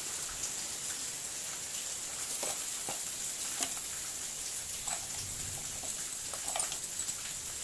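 Rustling of a plastic bag and light clicks of small metal parts as a hand rummages through it for a bolt, over a steady high hiss.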